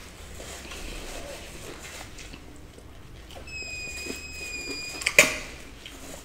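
Black insulated water bottle whistling as she sips from it: a thin high whistle lasting about a second and a half in the middle, dipping slightly in pitch as it ends. A sharp click follows about five seconds in.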